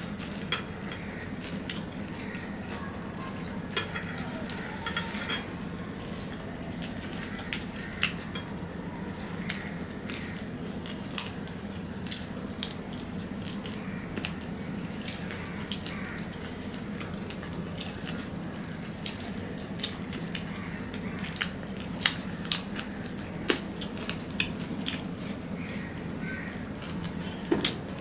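People eating fried rice and fried chicken from ceramic plates: scattered sharp clicks and taps of fingers and a fork against the plates, over a steady low hum.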